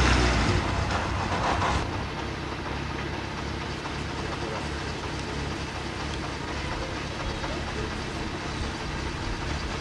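Motorcycle engine running, louder for the first two seconds, then idling steadily at a lower level.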